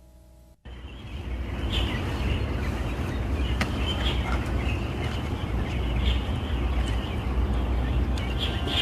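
Outdoor ambience: birds chirping now and then over a steady low rumble of background noise, starting after a short quiet moment.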